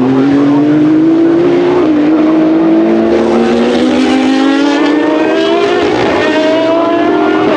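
Race car engines accelerating hard. The pitch climbs steadily and drops back with each upshift, about every two seconds, while other cars' engines overlap at higher pitch.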